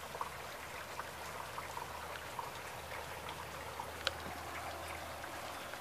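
Light rain falling on wet pavement and grass: a steady hiss with scattered drops ticking close by, one sharper drop about four seconds in.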